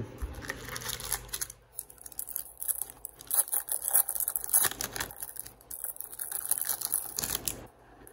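Trading cards being handled and flicked through by hand: a quick, irregular run of clicks and rustles as the cards slide over one another, stopping near the end.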